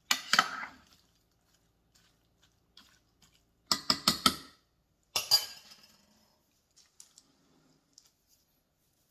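A utensil clinking and clattering against a cooking pot while pork, soy sauce, vinegar and water are mixed in it: a clatter at the start, a quick run of several knocks about four seconds in, and another clatter a second later.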